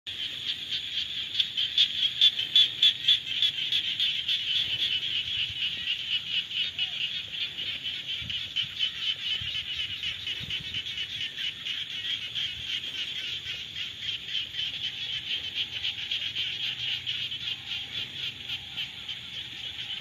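A dense chorus of frogs calling together, a steady high-pitched pulsing trill with no breaks.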